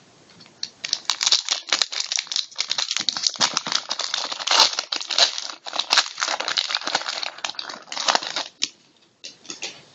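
Trading-card pack wrapper crinkling and tearing as a pack is opened: a dense run of crackles and rustles from about a second in that stops near the end.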